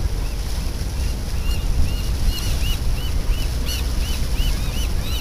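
Steady low rumble of a passing fishing boat's engine mixed with wind on the microphone. From about a second and a half in, a run of short, high chirps repeats about three times a second.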